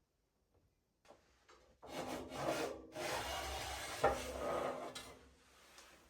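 A rough scraping rub lasting about three seconds, with a sharp knock partway through.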